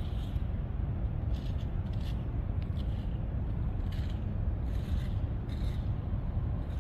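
Footsteps scuffing on brick paving, a short scrape every half second to a second at walking pace, over a steady low rumble.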